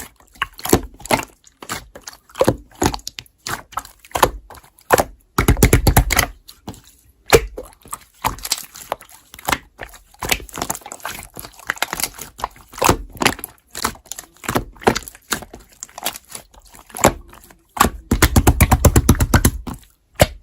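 Slime being squeezed, stretched and pressed by hand, giving irregular wet clicks and pops from trapped air bubbles, with two spells of fast rapid popping, one about six seconds in and one near the end.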